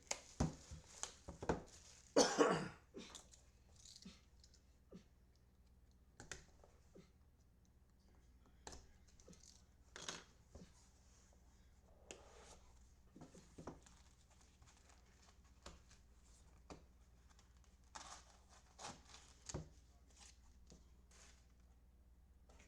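Wrapping being torn off a sports card box and the cardboard box and cards handled: scattered soft rustles, tearing, taps and clicks, the loudest rustle about two seconds in.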